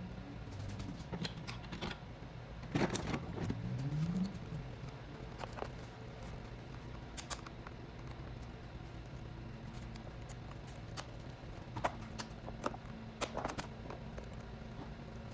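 Irregular plastic clicks, scrapes and knocks as a pick pries at the locking tabs of a park brake switch in a plastic dash panel. The tabs fight the prying, and one of them cracks.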